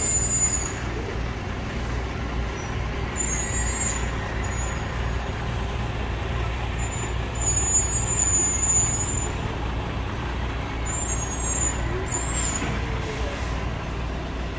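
Heavy-haul truck's diesel engine running at low speed, a steady low drone as it hauls an oversize load, with short high-pitched squeals several times.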